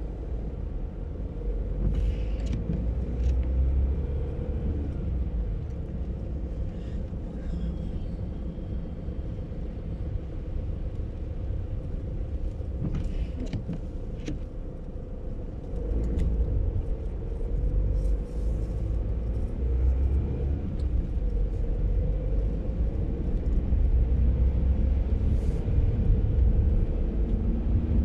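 A car driving on a wet, slushy road, heard from inside the cabin: a steady low rumble of engine and tyres that grows louder about halfway through, with a few short clicks here and there.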